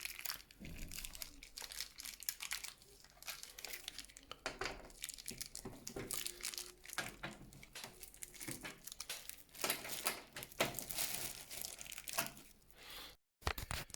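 Handling sounds from a Corsair Spec-05 PC case: scattered small clicks and plastic crinkling as the four screws holding its acrylic side panel are taken out.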